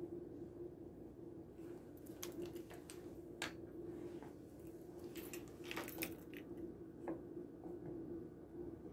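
Faint, scattered clicks and scrapes of kitchen utensils handling peanut butter, a spoon scooping it and a spatula spreading it on bread in a nonstick skillet, over a steady low hum.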